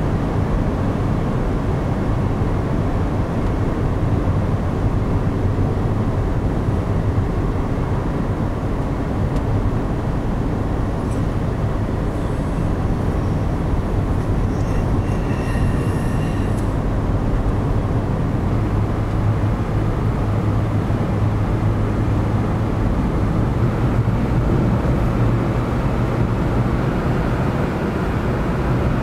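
Steady road and engine noise inside a moving car, a low rumble and hum with no change in pace.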